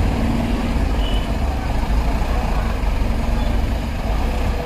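Engines of a school bus and a small goods truck moving slowly past at close range, a steady low rumble.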